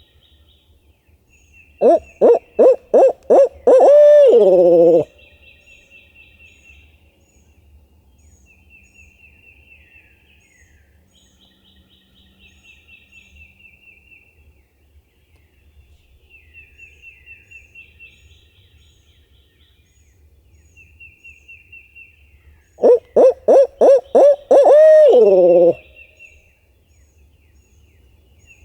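Owl locator call, made to sound like a barred owl's 'who-cooks-for-you, who-cooks-for-you-all'. It is blown twice, about twenty seconds apart: each time a quick run of hoots ends in one long note that drops in pitch. The call is meant to make a gobbler shock-gobble and give away where he is.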